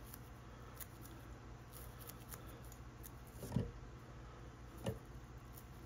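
Faint snips of fly-tying scissors trimming the body of a small bass bug, with two louder cuts about three and a half and five seconds in, over a low steady hum.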